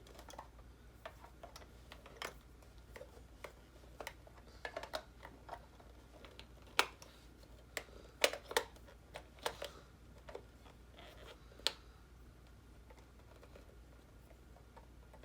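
Irregular small clicks and taps of batteries being pushed into an LED calendar's plastic battery compartment.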